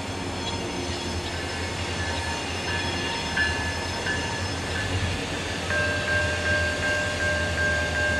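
CSX diesel freight locomotives running toward a grade crossing with a steady low engine rumble. About five and a half seconds in the locomotive horn starts a long, steady blast, louder than the engines.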